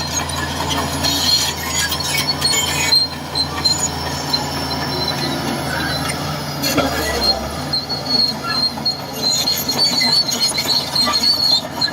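Shantui DH17C2 crawler bulldozer at work: a steady diesel engine drone under a high metallic squeal from its tracks that comes and goes, strongest a few seconds in and again near the end.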